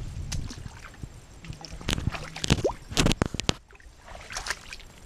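Footsteps squelching and sloshing through wet mangrove mud and shallow puddles. A quick run of sharp wet pops and clicks comes between about two and three and a half seconds in.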